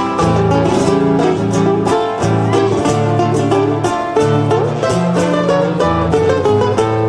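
Instrumental interlude of an Argentine folk song played on plucked strings, led by guitar, with a quick picked melody over bass notes that change about once a second.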